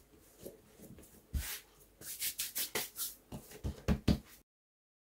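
Hands patting and pressing a ball of yeast dough flat on a floured silicone baking mat: soft pats, coming in a quick run in the second half. The sound then cuts off to dead silence a little over four seconds in.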